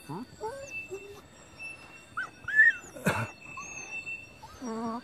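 Dog whining in short rising and falling whimpers as it digs into an earth burrow, with a loud scuffling burst about three seconds in. Near the end comes a longer wavering whine.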